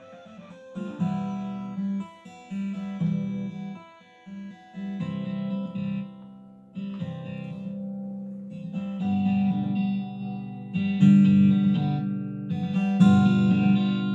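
Guitar instrumental music playing through Ashton AT1000S powered speakers run on their own built-in 2.1-channel amplifier, in strummed phrases with short breaks between them. Both speakers play cleanly after the broken binding-post terminal was repaired by soldering.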